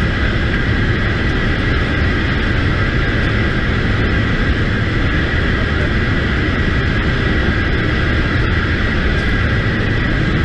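Steady roar of a military transport aircraft's engines and wind rushing through the open rear cargo ramp, with a steady high whine running through it.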